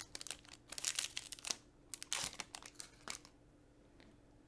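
Foil wrapper of a Pokémon TCG booster pack crinkling and tearing as the pack is opened by hand, in rapid crackles that stop about three seconds in.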